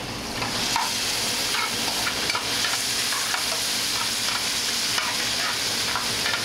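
Frying pan sizzling on a gas burner as a metal spoon stirs the pancetta, anchovies and olives, with short clicks and scrapes of the spoon against the pan. The sizzle swells about half a second in.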